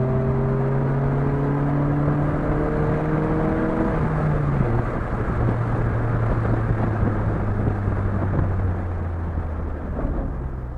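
Chevrolet Vectra 2.2 8V four-cylinder with a sport exhaust accelerating under load, its note slowly rising in pitch. About four and a half seconds in the pitch drops with a gear change, then climbs again before fading near the end.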